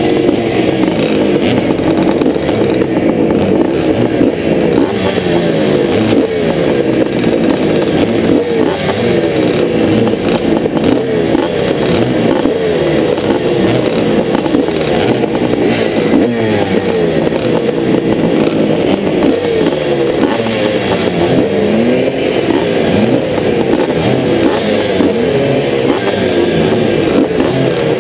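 Several motocross bikes held stationary side by side, engines running and revved up and down over and over in overlapping rising and falling blips, among them the rider's own 1983 Honda CR480 two-stroke single. The bikes are waiting on the line for the start.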